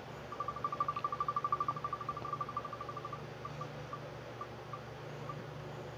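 The wheelofnames.com spinning wheel ticking as it turns. A fast run of short, high ticks, over ten a second, slows as the wheel loses speed and thins out to single ticks until it stops about five seconds in.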